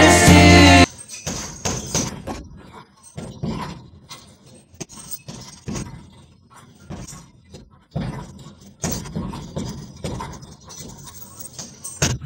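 Punches landing on a hanging heavy bag: irregular thuds and slaps a second or so apart, with the bag's suspension chains jangling. Music playing at the start cuts off about a second in.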